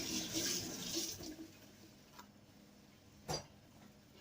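Kitchen tap running over hands being washed, the water stopping about a second in; then a faint click and a sharper knock about three seconds in.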